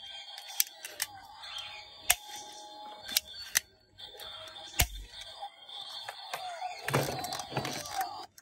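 Plastic toy gun being handled: about half a dozen sharp plastic clicks and knocks, spread out. Near the end there is a louder clatter of plastic toys being moved about.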